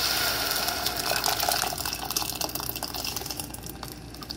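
Blended tomato salsa poured from a blender jar into hot olive oil in a pot, hissing and crackling as it hits the oil and starts to fry. The sizzle is loudest at first and eases off toward the end.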